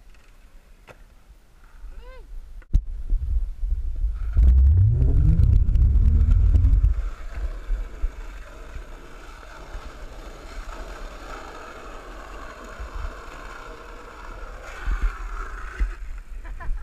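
Skateboard wheels rolling on asphalt. A sharp click comes about three seconds in, and a heavy low rumble covers the microphone for about three seconds soon after.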